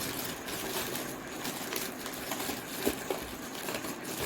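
Handling noise as the stand is fitted into an LG monitor: light rustling with a few small clicks and knocks, the sharpest nearly three seconds in.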